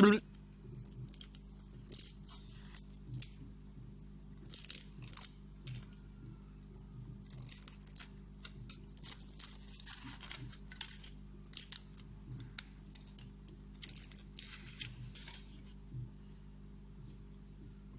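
Foil wrapper of a Kinder Surprise chocolate egg being peeled off by hand: irregular short bursts of crinkling and tearing.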